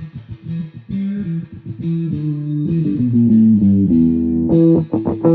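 Instrumental music: guitar and bass playing a rhythmic riff, growing louder and fuller about four and a half seconds in.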